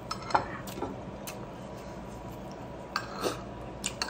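Eating by hand from a ceramic plate: a few small, sharp clicks and clinks as fingers pick up rice against the plate, over a steady room hum.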